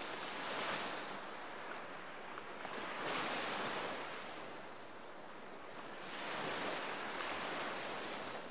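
Water rushing and splashing past a moving ferry's hull, with wind on the microphone, swelling and easing three times.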